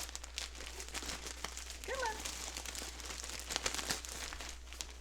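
Packaging crinkling and rustling in irregular crackles as yarn is unpacked and handled.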